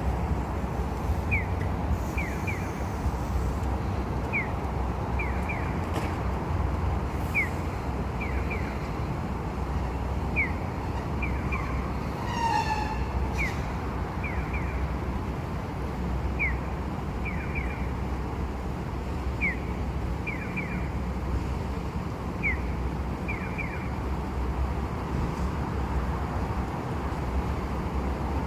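Steady street-traffic rumble beside the tram stop, with an electronic pedestrian-crossing signal chirping in a repeating pattern of one chirp then two or three quick ones, about every three seconds.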